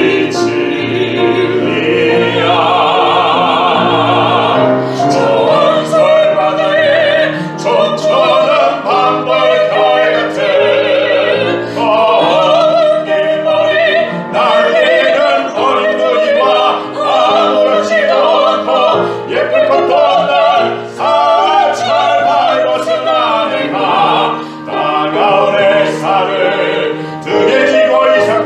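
Operatic singing with wide vibrato, accompanied by piano.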